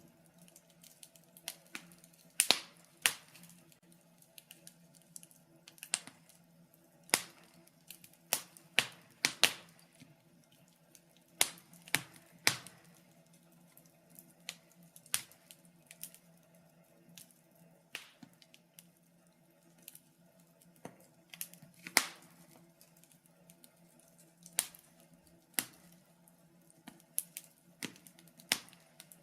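Wood fire in a fireplace crackling, with irregular sharp pops and snaps, some loud and many faint, over a faint steady hum.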